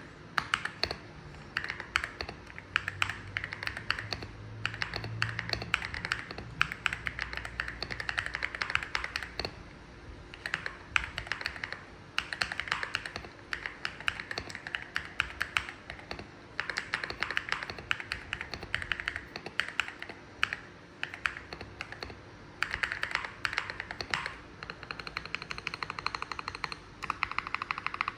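Typing on a Zuoya GMK67-S mechanical keyboard with Ajazz Moon Yellow switches, fully foamed and fitted with XDA-profile keycaps. Runs of quick keystrokes are broken by short pauses, and near the end the presses come in a faster, denser run.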